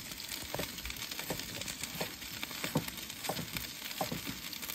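Food frying in lard in a pan: a steady sizzle with scattered sharp pops and light clinks.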